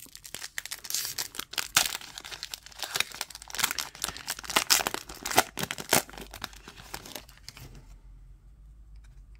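Crinkly wrapper of a sealed trading card pack being torn open and crumpled, a dense run of tearing and crackling that dies away about seven seconds in as the cards are drawn out.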